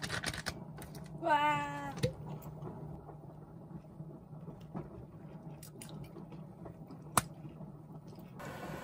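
A house cat meows once, briefly, about a second in, over a low steady hum. Two sharp knocks follow, one about two seconds in and one near seven seconds.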